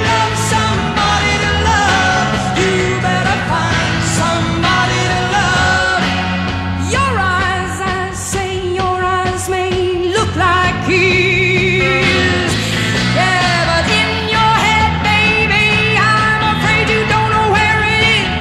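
Rock song with a lead vocal over a steady drum beat.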